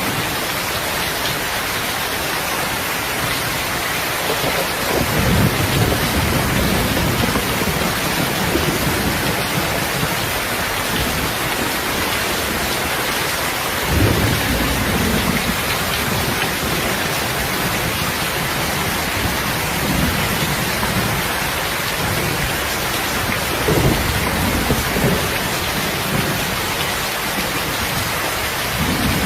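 Steady rain falling, a dense even hiss, with low distant rumbles swelling up and fading several times, the clearest about five and fourteen seconds in.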